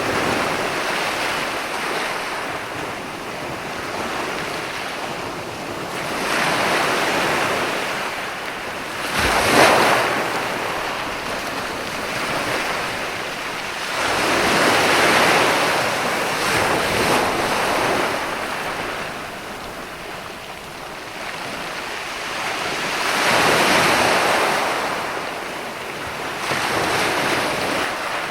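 Ocean waves breaking on a sandy beach: a continuous rush of surf that swells and fades as each wave comes in, with one sharper, louder crash about nine seconds in. Some wind on the microphone.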